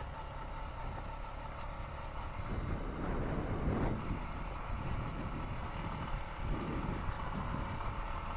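Honda Foreman 520 ATV engine running steadily under way on a dirt trail, with a louder rush of noise about three to four seconds in.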